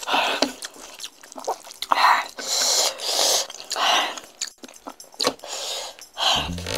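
Close-miked eating sounds of spicy chewy jjolmyeon noodles: wet chewing and mouth noises with breathy huffs between bites. Music comes in near the end.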